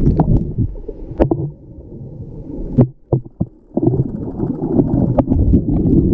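Muffled underwater noise picked up by a submerged GoPro in a swimming pool: a low rumble of water churned by a swimmer, with sharp clicks and knocks. The rumble drops away for about a second past the middle, then returns with bubbling.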